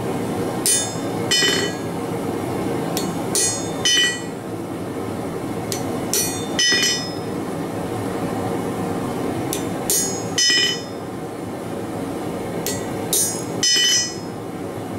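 Hammer striking a chisel held on a hot steel leaf on the anvil, cutting its vein lines: sharp ringing metallic strikes in five pairs, about every three seconds, the second blow of each pair the louder, over steady background noise.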